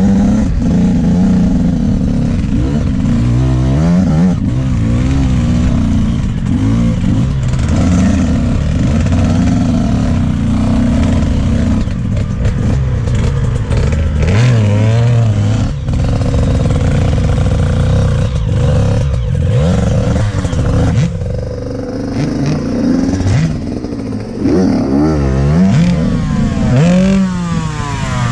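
Enduro dirt bike engines revving up and down, the pitch rising and falling constantly as the throttle is worked on a rough trail. There is a brief easing off about three quarters of the way through, then hard revving again near the end.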